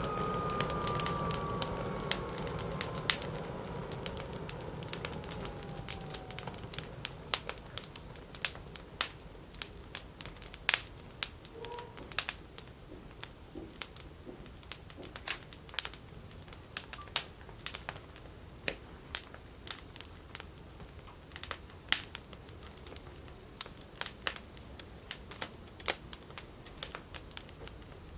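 Wood fire burning in a BioLite FirePit, crackling with irregular sharp pops, some loud and some faint. Over the first several seconds a faint whine slides down in pitch and fades out.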